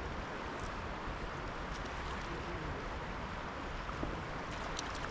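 Steady rush of flowing river water, with a few faint ticks near the end.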